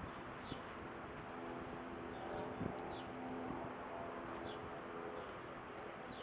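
Steady, high buzzing of cicadas in the summer trees, with short high chirps repeating about every second and a half and a faint low hum of distant traffic underneath.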